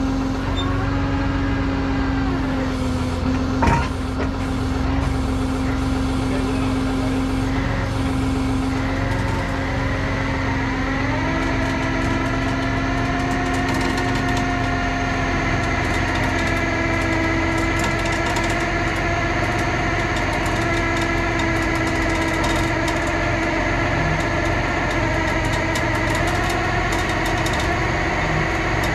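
Vehicle engine running steadily, its speed rising about ten seconds in and then holding at the higher pitch. A single sharp knock about four seconds in.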